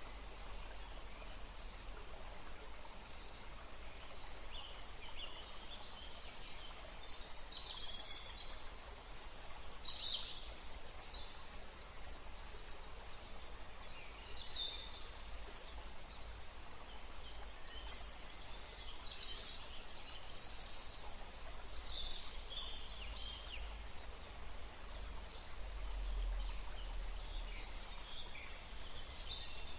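Several birds chirping and calling in short, high bursts one after another, over a faint steady background hiss and low rumble.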